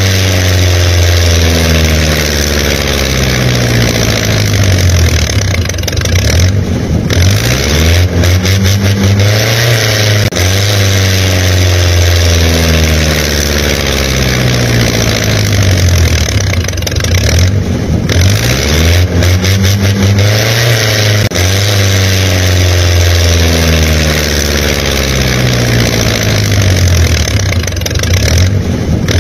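Engine sound effect revving up and dropping back over and over, one cycle every three or four seconds, with brief dips about a quarter and two-thirds of the way through.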